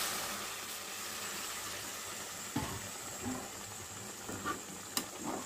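Hot water poured into a metal kadai of cooking chicken curry, hissing and bubbling as it meets the hot pan and slowly easing off. A metal spatula stirs and knocks against the pan a few times.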